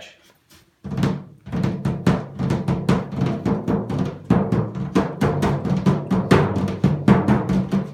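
A new Ludwig Classic Maple tom drum, straight out of its box, tapped rapidly with the hand on its top head, starting about a second in: a fast run of strokes with the drum's low tone ringing on between hits.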